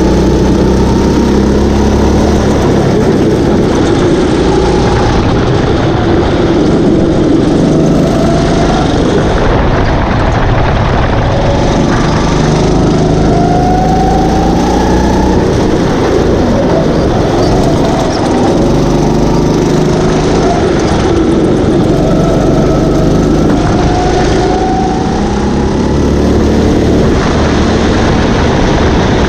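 Rental kart engines running at race speed. The revs climb and drop every few seconds over a loud, steady rumble.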